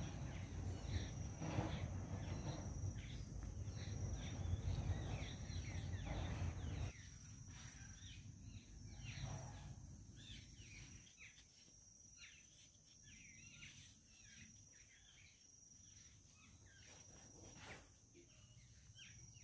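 Outdoor ambience of insects chirping in a high, repeated pulsing trill, with birds chirping. A low rumble runs through the first seven seconds or so, then stops abruptly.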